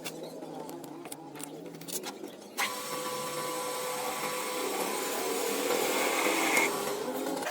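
A few light clicks and knocks, then an electric power tool starts abruptly about two and a half seconds in and runs steadily with a whirring hum.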